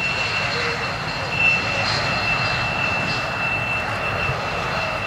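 Jet engine of a two-seat F-16D Fighting Falcon rolling along the runway: a steady rush with a constant high whine running through it.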